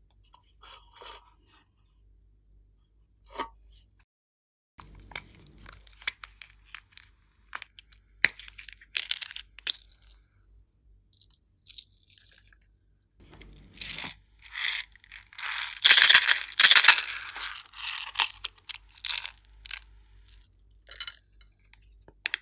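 Glossy slime being squished and stretched by hand, giving sticky crackling and popping clicks in irregular bursts. It is sparse at first and loudest and densest about two-thirds of the way through.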